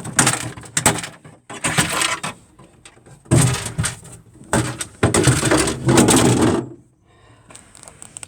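Plastic dashboard trim panel being pulled and worked loose: clattering and scraping in four bursts, the longest about two seconds.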